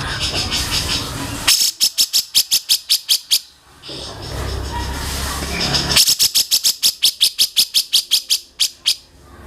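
A songbird giving two bursts of rapid, sharp repeated notes, about seven a second, each lasting two to three seconds, with a low steady hum in the pause between them.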